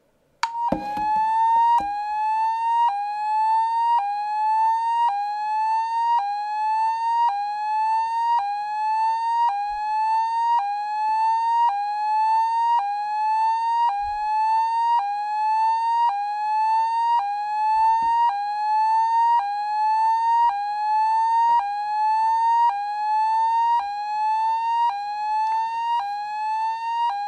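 Fire-alarm tone from the Tone Generator Ultra iPhone app at full volume, imitating a Roshni fire alarm sounder: a loud tone that sweeps up from 800 to 950 hertz and snaps back down, about once a second. It starts about half a second in.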